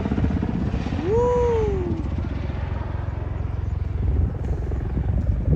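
Helicopter running: a steady low rumble with fast, even rotor pulsing. About a second in, a brief tone rises and then falls over it.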